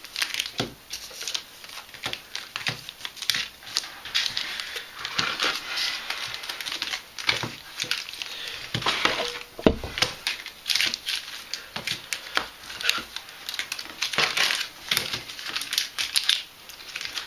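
Foil Yu-Gi-Oh booster packs crinkling and rustling as they are handled and laid out, a steady run of irregular crackles, with one knock about ten seconds in.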